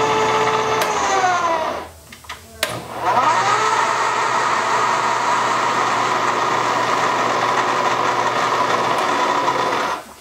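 Milling machine spindle motor running a tap to cut the 14 mm spark plug thread in a shovelhead cylinder head. About a second in it is switched off and winds down with a falling hum. After a click it starts up again, its pitch rising, and runs steadily until it stops near the end.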